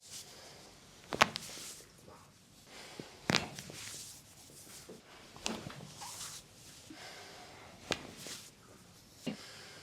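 Joints being cracked during chiropractic manipulation: about five sharp pops a couple of seconds apart, each followed by a soft rustle.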